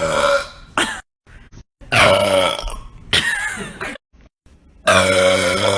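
A young woman burping on purpose, several times: one burp trailing off at the start, a long drawn-out, pitched burp from about two seconds in that wavers and breaks briefly halfway, and another starting near the end.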